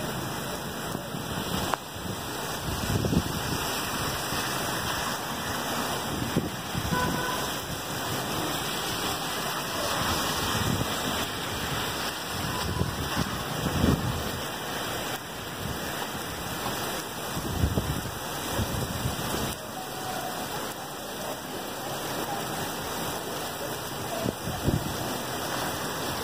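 Heavy rain pouring onto a paved street, a steady hiss, with gusts of wind rumbling on the microphone every few seconds.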